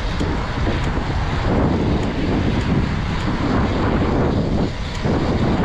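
Wind buffeting the microphone at riding speed, about 35 to 37 km/h: a loud, steady rumbling rush that swells and dips without a break.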